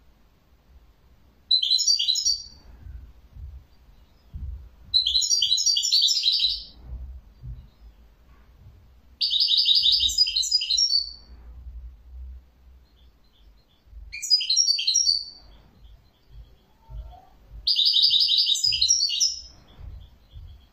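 European goldfinch singing in five bursts of rapid twittering song, each one to two seconds long, with pauses of a few seconds between them.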